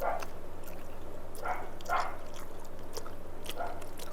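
Close-up eating sounds: soft smacks and clicks of chewing rice and fish curry. A dog barks a few short times in the background, twice in quick succession about a second and a half in.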